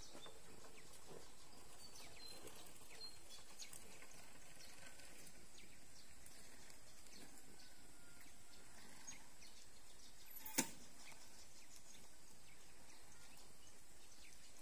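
Faint outdoor ambience: a steady low hiss with a few faint high chirps, and a single sharp click about ten and a half seconds in.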